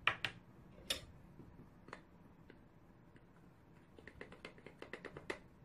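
Garlic powder container being handled over a mixing bowl: a few sharp clicks at the start and about a second in, then a quick run of light taps near the end as the powder is shaken out.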